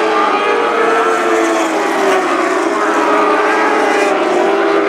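Engines of several Lightning Sprint cars racing together at high revs, their overlapping pitches rising and falling as the cars accelerate and lift through the turn.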